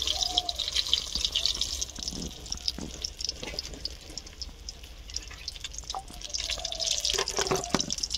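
Samosas deep-frying in hot refined oil in an iron wok: the oil sizzles and crackles, dies down through the middle and picks up again near the end. A few light knocks are heard along the way.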